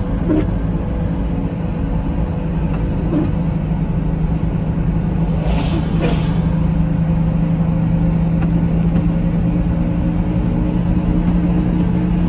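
Steady road and engine noise inside a moving car, with a constant low hum and rumble, and a brief hiss about halfway in.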